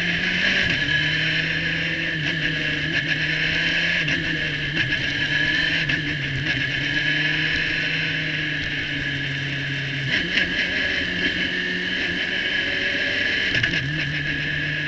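Radical SR3 1500's 1.5-litre four-cylinder engine running steadily at part throttle, around 4,000 to 5,000 rpm at low speed, heard from the open cockpit with a high whine over it. The steady engine note drops away about ten seconds in and comes back near the end.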